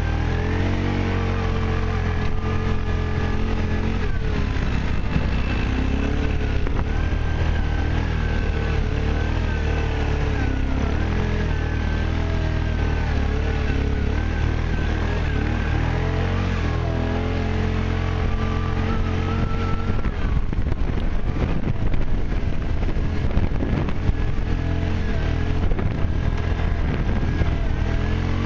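ATV engine running as it is ridden over a rough grass track, its pitch rising and falling with the throttle. In the last third it gets rougher, with knocks and rattles over the bumps.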